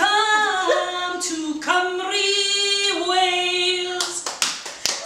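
A woman singing a melody unaccompanied, holding each note for up to a second. About four seconds in, hand claps start at a steady beat.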